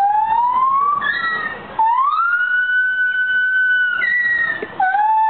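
A gibbon singing: long, pure, siren-like whooping notes that slide up in pitch. One note is held high and steady for about two seconds, and near the end a new note rises briefly and starts to fall.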